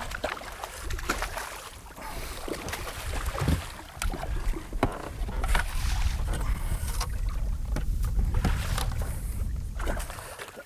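Hooked redfish thrashing and splashing at the water's surface, a series of short sharp splashes, over a steady low rumble of wind on the microphone.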